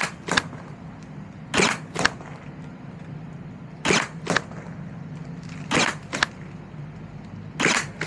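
Blizzard Pyro Nerf blaster firing foam darts at a steady pace, five shots about two seconds apart. Each shot is a short sharp pop, followed about half a second later by a crisp tap as the dart strikes the cardboard target.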